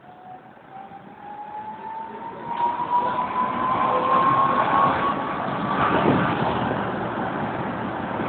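Electric tram accelerating, heard from inside the car: the traction motors whine in a steadily rising pitch while the running noise of the wheels on the rails grows louder, then evens out.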